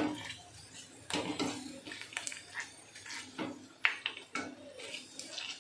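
Puris frying in hot oil in a kadai, a faint steady sizzle, with a utensil clinking sharply against the pan a few times.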